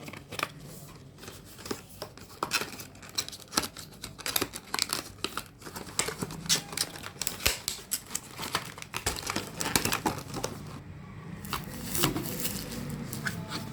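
Hands opening a power bank's tight packaging: wrapping crinkling and tearing, with many short irregular rustles and clicks.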